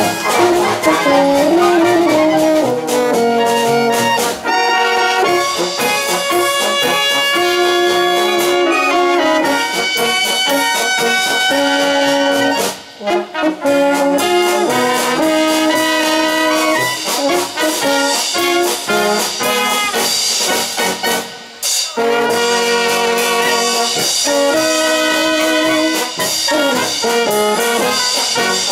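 Brass band playing an instrumental passage of held, stacked chords in a steady beat. There are two brief pauses, about thirteen and twenty-one seconds in.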